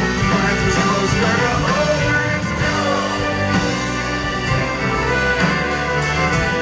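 Live folk-rock band playing a sea shanty: strummed acoustic guitar, accordion, electric guitar and drums, with a singing voice over the music.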